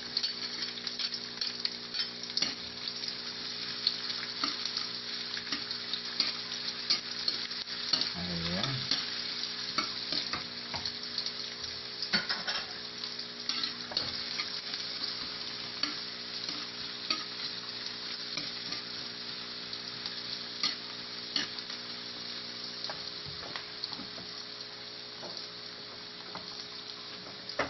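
Chopped onion and garlic sizzling in hot oil in a metal wok, with a metal spatula scraping and tapping against the pan as the onions are stirred.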